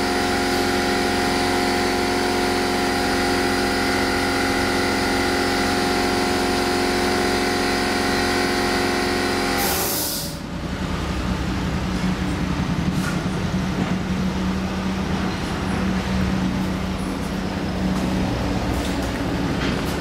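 Gasoline-powered jumping-jack tamping rammer running at full throttle, compacting soil, with a steady engine note. About halfway through the sound changes abruptly to a lower, rougher rattling.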